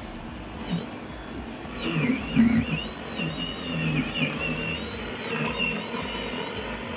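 Einhell GC-SC 36/31 cordless scarifier working hard with its blade roller cutting into dead turf: a high electric-motor whine that sags in pitch now and then under load, over an uneven low rumble, briefly louder about two and a half seconds in.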